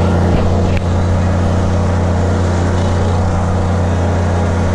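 An engine running steadily at constant speed, a loud low drone, with a brief click about a second in.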